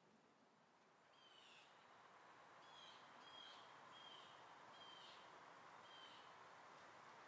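Faint outdoor ambience: a bird calling with short, slightly falling chirps about once a second, starting about a second in, over a low hiss that swells slightly.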